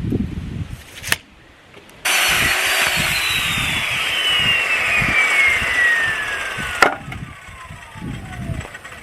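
Power saw cutting through a scrap lumber board: a loud cutting noise starts abruptly about two seconds in and ends in a sharp crack as the cut finishes, while the motor's whine falls steadily in pitch as the blade spins down. Wind buffets the microphone at the start.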